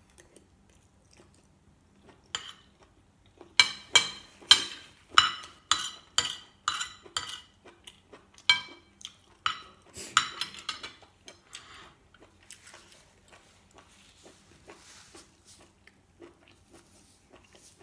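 Metal spoon and fork scraping and clinking against a ceramic plate while scooping up food. A run of about a dozen sharp clinks comes a few seconds in and lasts around seven seconds, with only fainter clicks after it.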